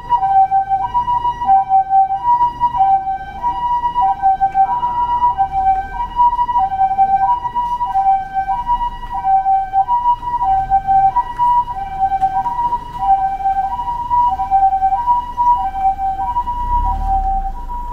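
Japanese ambulance siren sounding its two-tone "pi-po" call, a high and a low tone alternating evenly and steadily. A low vehicle rumble swells near the end.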